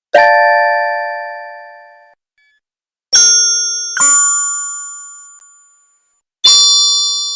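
Fairy-dust magic sound effect: four bright, bell-like chime strikes, each ringing down over about two seconds. The first is lower in pitch; the last three are higher, with a slight wavering tone beneath.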